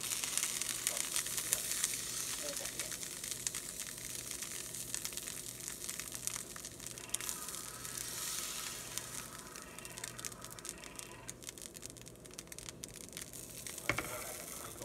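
Hot fat sizzling and crackling in a nonstick frying pan, the sizzle softening as pancake batter is ladled in and spreads. A single sharp knock comes near the end.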